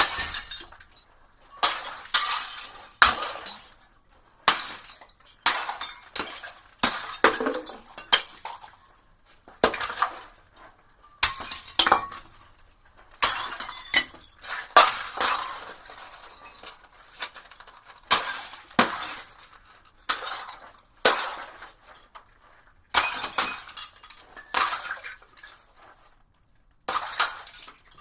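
Glass bottles smashing, one after another every second or two. Each smash is a sharp crash followed by a short tinkling of shards.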